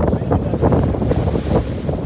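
Wind buffeting the microphone over choppy open sea slapping and washing around a small boat. There is a brief hiss a little past halfway.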